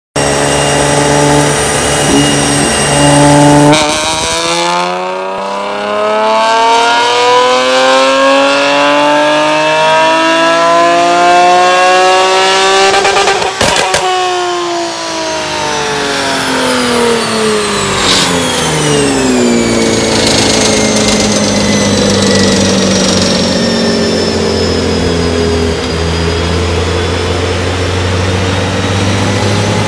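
Nissan 370Z's 3.7-litre V6 through an Armytrix cat-back exhaust, on a chassis dyno. It runs steadily for a few seconds, then makes a long full pull with the revs rising for about ten seconds. There is a sharp pop as the throttle closes at the top, then the revs fall away and settle into a steady lower drone.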